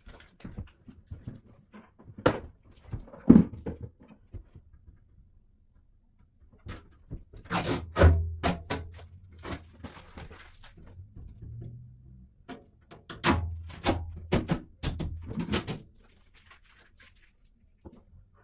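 Irregular clicks, taps and knocks of hands handling small objects, with low rumbling handling noise about halfway through and again a few seconds later.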